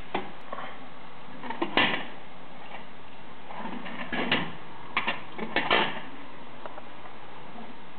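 A plastic hamster ball rolling on a wooden floor, with irregular hard knocks and clatters as it bumps into furniture, several of them close together between about four and six seconds in.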